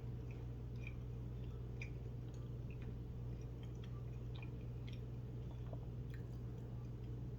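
A person chewing food with the mouth close to the microphone: scattered small wet clicks and smacks, over a steady low electrical-style hum.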